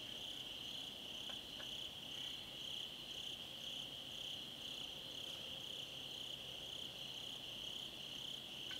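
Night insects chirping: a steady high trill with a second, higher chirp pulsing about twice a second.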